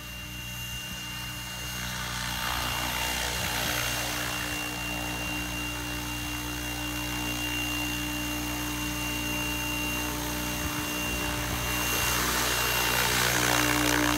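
SAB Goblin RAW 700 electric RC helicopter hovering and flying low: a steady rotor hum with a high whine over it. It grows louder about two seconds in and again near the end.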